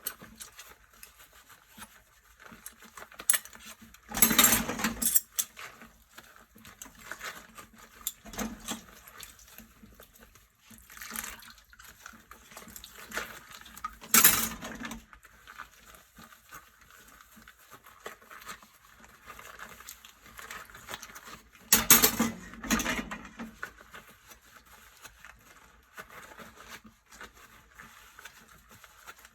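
Dishes being washed by hand in a sink: dishes and cutlery clink and knock now and then, with quiet rubbing and handling between. The loudest clatters come about four, fourteen and twenty-two seconds in.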